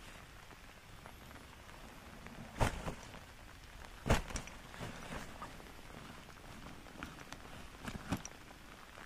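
Steady hiss of heavy rain, broken by a few sharp knocks, the loudest two about two and a half and four seconds in.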